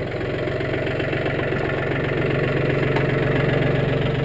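John Deere compact utility tractor's diesel engine running at a steady speed, getting a little louder about two seconds in.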